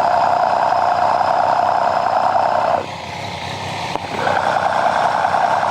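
Triumph 765 three-cylinder engine running, heard through a mechanic's stethoscope held on the cylinder head over the camshafts: a dense, steady mechanical clatter of valve train and cams. About three seconds in it turns quieter and duller for just over a second, then comes back full, as the probe moves from the intake-cam point to the exhaust-cam point, part of tracing a reported ticking noise.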